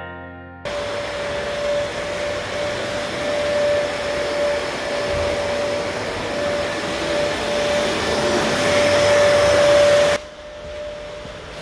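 Steady whirr of an electric motor with a constant whine. It starts just under a second in and drops sharply in level about ten seconds in.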